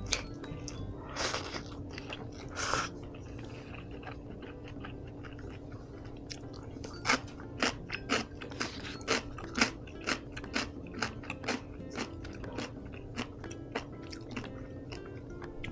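A person chewing crunchy food close to the microphone: two longer crunching bites in the first three seconds, then, from about six seconds in, a run of sharp crunching chews about two a second.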